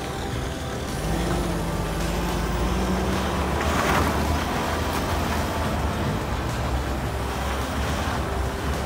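Moving off-road vehicle: a steady low engine and tyre rumble on a rough dirt track, with a faint engine tone rising slightly for the first few seconds. A short rush of wind-like noise comes about four seconds in.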